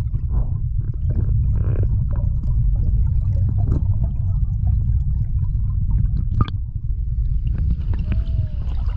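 Small tour boat's motor running with a steady low rumble, with faint water sounds and a short gliding tone near the end.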